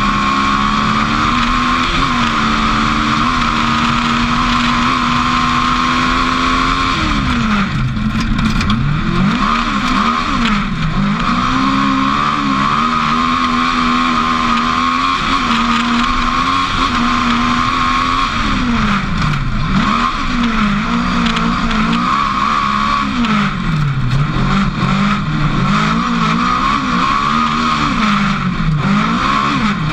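Race car engine heard from inside the cockpit under hard acceleration on a dirt circuit. Its note holds steady for the first several seconds, then repeatedly drops and climbs again as the car lifts and accelerates through corners and gear changes. A steady high whine runs over it throughout.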